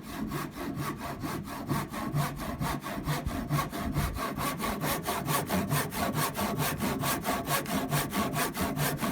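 Handsaw cutting through wood with fast, even back-and-forth strokes, about five a second.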